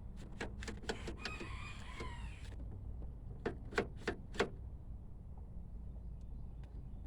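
Hard plastic parts of a car door's interior handle clicking and creaking as they are pressed and worked into tight, undersized mounting holes: a run of sharp clicks with a brief squeak, then four more sharp clicks.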